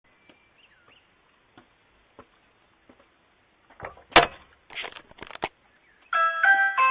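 A loud thump about four seconds in, followed by a quick run of knocks and clatter, then a doorbell chime ringing out in several stepped notes near the end.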